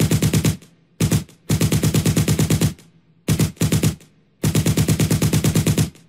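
Machine gun firing in five bursts of rapid automatic fire, at about ten shots a second. The bursts are short ones near the start and in the middle, and longer ones of over a second around two seconds in and near the end.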